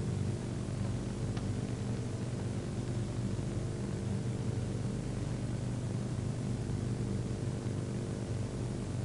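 Steady hiss with a low electrical hum underneath.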